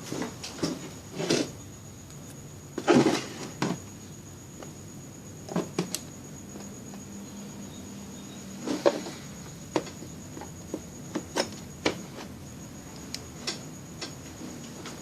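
Scattered light clicks and knocks of test probes and tools being handled at a workbench during electronics repair, with a louder clatter about three seconds in and another near nine seconds. A faint, steady high-pitched whine sits underneath.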